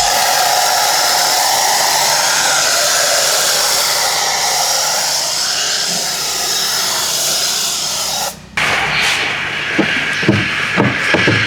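High-pressure washer jet spraying onto a car, a steady loud hiss. It cuts off for a moment about eight seconds in, as the trigger is released, then starts again, with a few knocks near the end.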